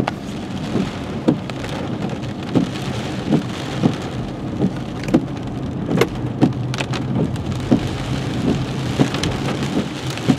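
Rain and wet-road noise inside a moving car, with a low steady hum and irregular thuds about once a second as storm debris on the road strikes the underside of the car.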